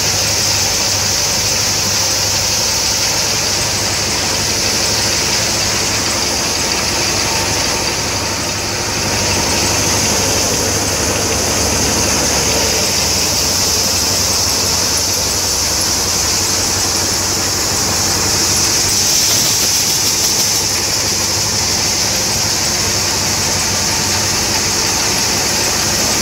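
Wheat thresher running steadily at work: a constant loud machine whir with a strong high hiss from its blower and a low engine hum underneath.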